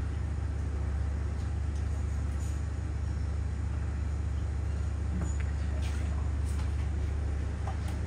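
A steady low hum throughout, with faint pouring as fresh milk goes from a metal jug into a plastic bucket, and a few light clicks near the end as the bucket's lid is pressed on.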